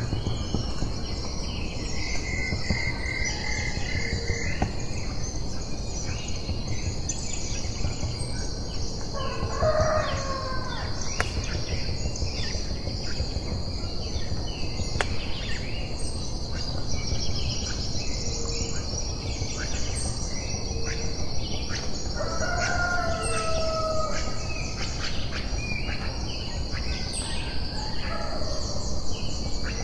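Rural morning ambience: a steady high insect drone and small birds chirping throughout, with a rooster crowing twice, about ten seconds in and again some thirteen seconds later.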